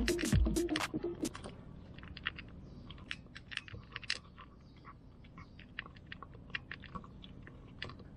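Background music stops about a second in, leaving a tabby cat chewing its food from a bowl: faint, irregular small crunches and clicks of its teeth and tongue.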